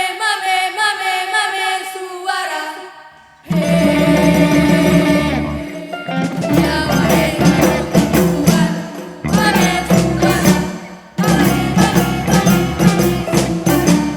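Live ensemble music in an Acehnese style: a solo voice chanting, then a full ensemble with heavy drums coming in about three and a half seconds in, stopping short together a few times and starting again.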